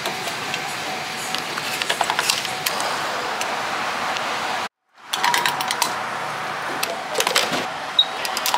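Gas station fuel pump running while it dispenses gasoline into a car, a steady whirring hiss with scattered mechanical clicks. The sound drops out briefly a little past halfway, then the same pump noise carries on.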